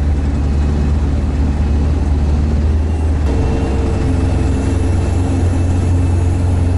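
All-terrain vehicle's engine running steadily under way, with a deep, even hum; a higher steady whine joins about three seconds in.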